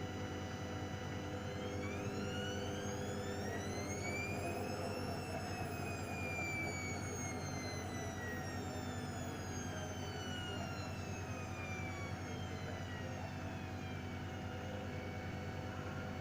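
Hoover washing machine's drum motor whining: the pitch rises for a few seconds as the drum speeds up, then slowly falls over about ten seconds as it winds down, the short spin between rinses. A steady mains-like hum runs underneath.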